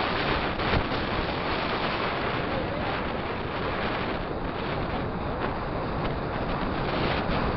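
Steady rush of wind over the microphone of a road cyclist riding downhill at speed.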